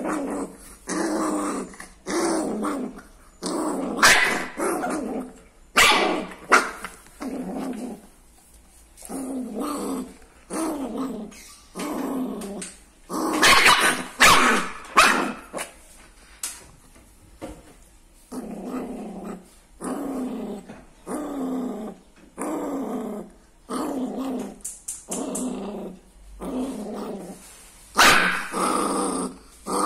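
Small black-and-tan dog growling and snarling in short repeated bursts while mouthing a person's arm, with a few louder outbursts.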